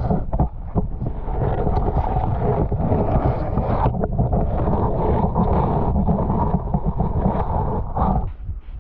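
Muffled rushing and bubbling of brook water heard through a submerged camera, dense and low with many small knocks against the housing. It turns quieter shortly before the end.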